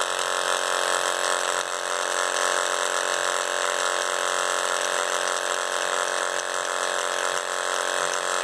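Vibration motor of a homemade vibrating seeder buzzing steadily as it shakes seeds along its trough at a controlled pace.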